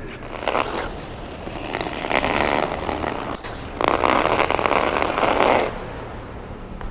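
Hockey skate blades scraping and carving on rink ice through strides and turns: a short scrape, a longer one about two seconds in, and a long, loud carve of nearly two seconds near the end.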